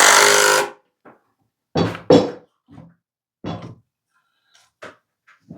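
A power tool runs and cuts off under a second in. It is followed by several short, sharp knocks and clatters of wood pieces and tools being handled.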